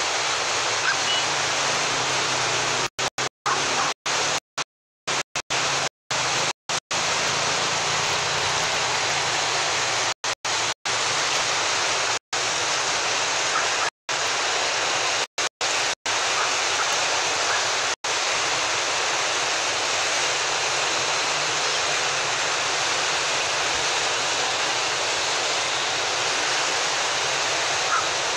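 Muddy floodwater rushing through an overflowing canal: a steady, loud, even rush of turbulent water. The sound cuts out completely for brief moments many times in the first two-thirds.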